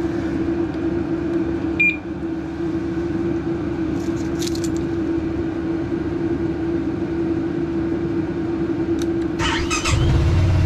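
BMW C400X scooter's single-cylinder engine cranked on the starter and catching near the end, then running at idle on its freshly refitted battery. Before that there is a steady hum and a short beep about two seconds in.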